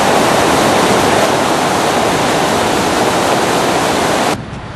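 Loud, steady rushing of fast-flowing water, like a mountain stream or waterfall. It cuts off suddenly about four seconds in, leaving a quieter hiss.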